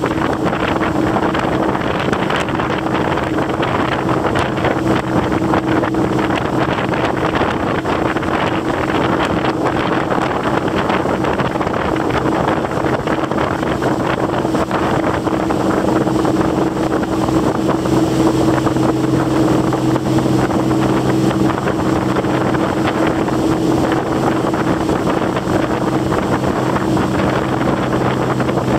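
Small motorboat running at cruising speed: a steady engine hum under the rushing hiss of the wake spray, with wind buffeting the microphone.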